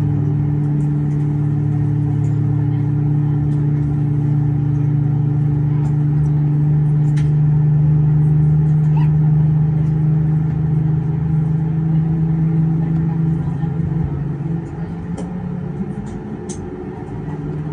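Steady low hum inside an Airbus A320 cabin, made of several held drone tones. About fourteen seconds in, the hum drops in level and shifts in pitch, with a few faint clicks over it.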